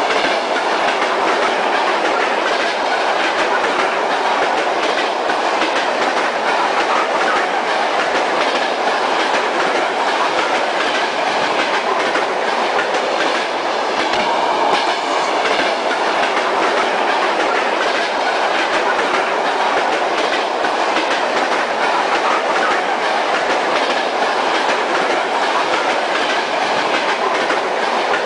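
Kyiv metro train heard from inside the car while running at speed: a steady rolling noise of wheels on rails, with faint regular clicks over the rail joints.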